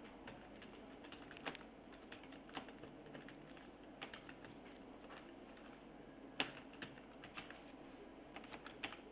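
Computer keyboard being typed on: faint, irregular keystrokes with uneven gaps, and one sharper click about six seconds in.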